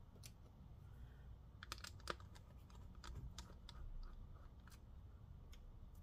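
Faint, irregular small clicks and ticks of a small screwdriver working the battery screws out of a laptop chassis, a few clicks at a time.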